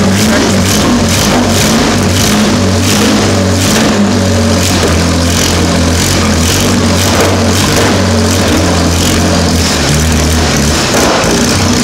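Jaguar 4.2-litre DOHC straight-six, converted to carburettors, running on its first start through open exhaust headers. The note wavers and dips unevenly.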